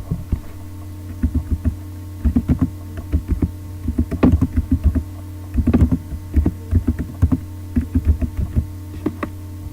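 Typing on a computer keyboard: irregular runs of key clicks, with a steady electrical hum underneath.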